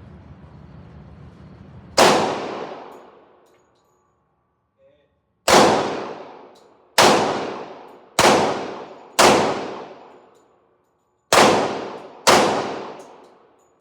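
Glock 29 10 mm subcompact pistol firing 180-grain rounds: seven single shots at an uneven pace, the first about two seconds in, each shot followed by a long echoing decay.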